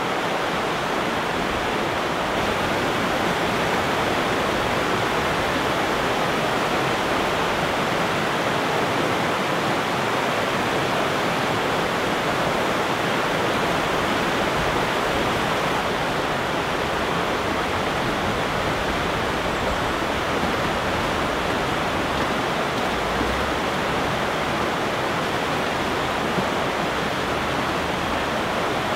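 River rapids rushing over rocks, a steady, unbroken roar of water.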